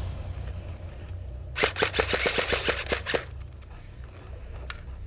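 Airsoft rifle firing a rapid burst of about a dozen shots, about eight a second, followed a second and a half later by one more single shot.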